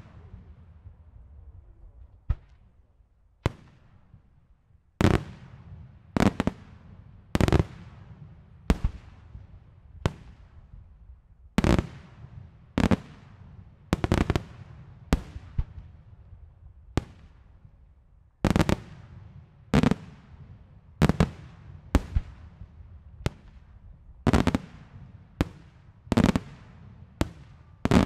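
Daylight fireworks: aerial shells bursting in a steady series of sharp, loud bangs, about one a second after a short lull at the start, each trailing off in an echo.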